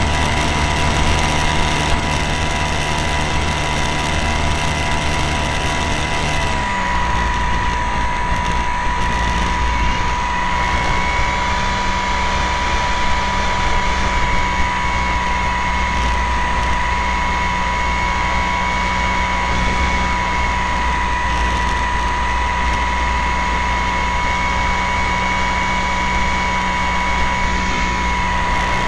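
A plane's engine running steadily in flight, picked up by an onboard camera, a constant drone with a whine on top. About six and a half seconds in, its pitch shifts and then holds steady again.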